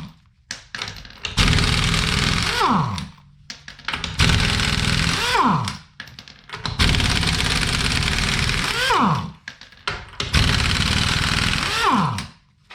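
Impact wrench with a 20 mm socket hammering the lug nuts off a wheel, four runs of about two seconds each with short pauses between, each ending in a falling whine as the tool spins down.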